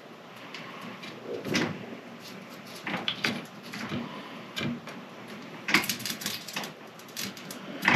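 Workbench handling sounds: scattered knocks and clicks with short rustles, busiest about six seconds in, as parts for a fishing rod blank repair are picked up and worked.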